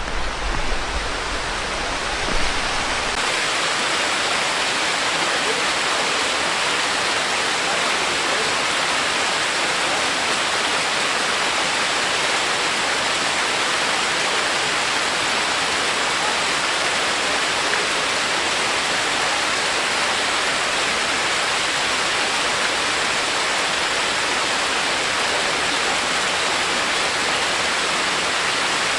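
Waterfall rushing: a steady, even hiss of falling water with no change in level. A low rumble sits under it for the first three seconds and stops abruptly.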